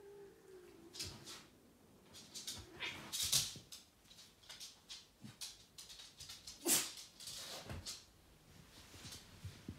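A cat's low, wavering cry in the first second, then a string of short noisy bursts, the loudest about three seconds in and again near seven seconds, as the cat squares off with a West Highland White Terrier.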